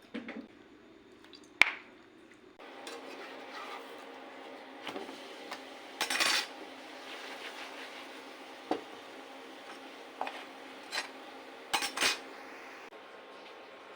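Scattered clinks, knocks and scrapes of dishes and cutlery being handled, a sharp knock every second or two over a faint steady background.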